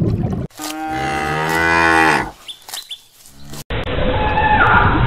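Cow mooing: one long call about two seconds long that falls in pitch as it ends. Near the end a different recording cuts in with another pitched animal call.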